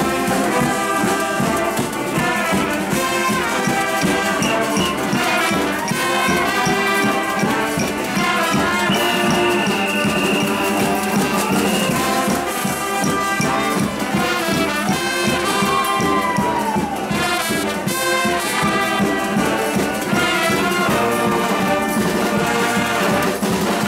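Brass music from a full ensemble, with a long high held note a little before the middle.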